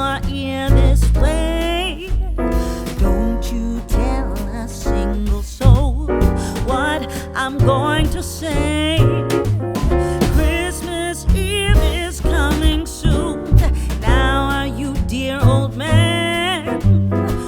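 A song playing as a backing track: a singing voice over piano or keyboard chords and a steady bass line, in a soul or jazz style.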